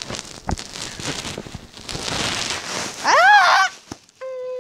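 Rustling and handling noise, then a loud short call about three seconds in that rises and falls in pitch, followed near the end by a steady flat beep lasting under a second.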